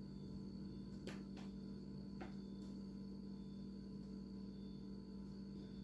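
Steady low hum under a few light clicks and taps, four of them within the first three seconds, as sliced mushrooms are laid onto a plastic mesh dehydrator tray.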